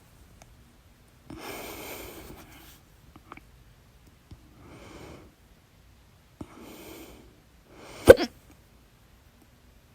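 A person breathing audibly in and out a few times, then one loud, sharp hiccup about eight seconds in, during a stubborn bout of hiccups.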